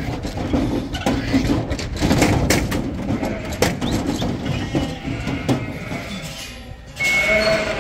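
Vehicle and loaded livestock trailer on the move: a low running rumble with repeated knocks and rattles. About seven seconds in the sound changes abruptly to sheep bleating.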